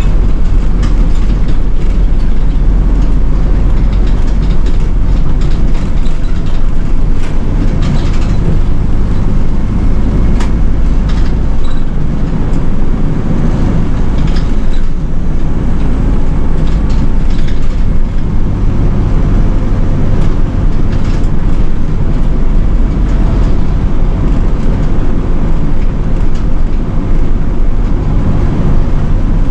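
City bus under way, heard from inside the cabin: a steady engine and road rumble with scattered small rattles and clicks.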